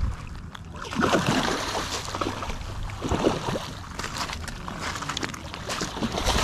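A hooked salmon thrashing in shallow water at the shoreline, throwing up bursts of splashing from about a second in, over a steady low wind rumble on the microphone.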